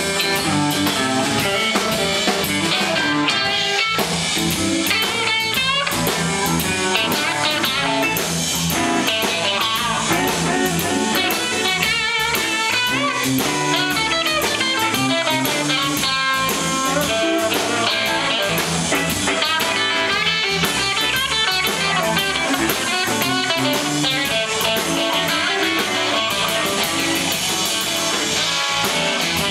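Live blues-rock band playing, with an electric guitar out front playing lead lines full of bent, wavering notes over drums and a second guitar.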